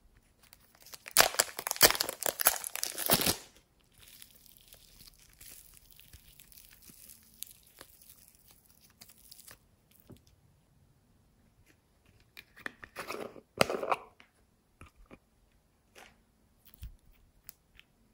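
Plastic wrapper on a block of foam clay being torn and crinkled open, loud for about two seconds starting about a second in, then faint rustling. A shorter burst of crinkling comes about thirteen seconds in, and a few light clicks near the end.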